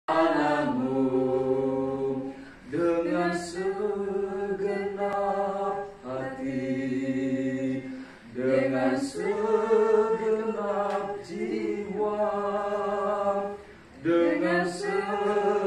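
A small group of voices singing a hymn unaccompanied, in held phrases a few seconds long with short breaks between them.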